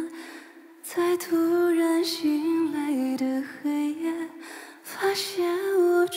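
A woman singing a slow Mandarin ballad line into a microphone. She holds long notes that step in pitch, after a short breath pause at the start.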